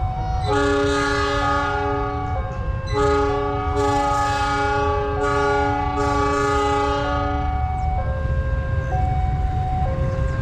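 Locomotive horn blowing a chord, a short blast of about two seconds, then a longer one of about four and a half seconds. Underneath, a level-crossing warning alarm alternates between two tones about once a second, over the low rumble of the train.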